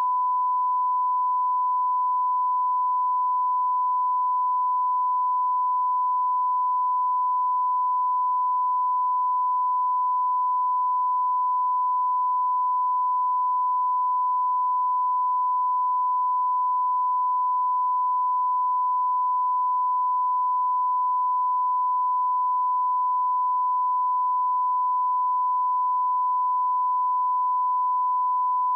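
Steady 1 kHz line-up reference tone, a single pure unbroken beep, sounding with colour bars as the level-calibration tone at the head of a broadcast tape.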